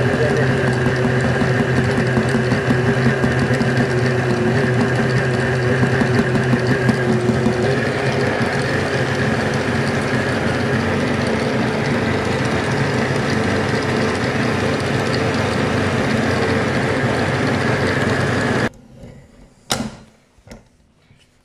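Stand mixer motor running steadily as it mixes sponge-cake batter, cutting off suddenly about three-quarters of the way through; a few knocks of the steel bowl and utensils follow.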